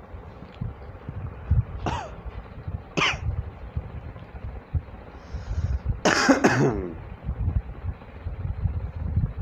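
A person coughing or clearing the throat once, about six seconds in, loud and rough. Two short sharp sounds come before it, and a low rumble runs underneath.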